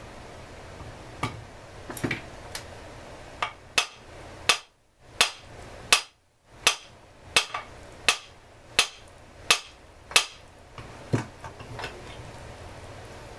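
A hammer striking a chainsaw being taken apart: about fifteen sharp metallic blows, evenly spaced at roughly one and a half a second through the middle and more scattered at the start and end.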